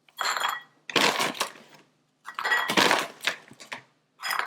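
Kitchen handling noise: three bursts of rustling and clinking, each about a second long, with a short fourth one near the end.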